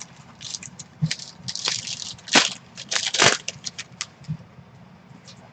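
Plastic card packaging crinkling and trading cards rustling as they are handled, a quick run of sharp crackles that thins out after about four seconds.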